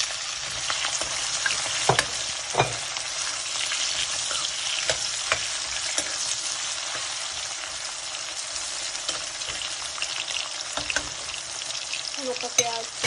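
Sliced onions frying in hot oil in a metal karahi: a steady sizzle, with a metal spoon clinking and scraping against the pan as they are stirred. The sharpest clinks come about two seconds in.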